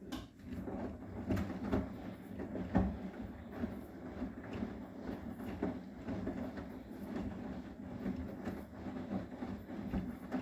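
Arçelik 9120M washing machine running a wash with its drum turning the load of duvet covers: a steady motor hum with irregular knocks and thumps from the tumbling laundry.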